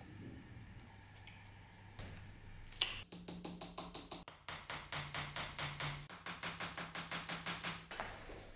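Small hammer tapping quickly and lightly, about five strikes a second for some five seconds, starting about three seconds in, as it knocks brass pins home through the elk-horn handle scales of a hunting knife.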